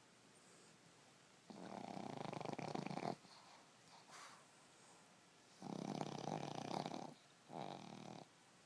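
A sleeping Boston Terrier snoring: two long snores, the first about a second and a half in and the second about halfway through, then a shorter one near the end.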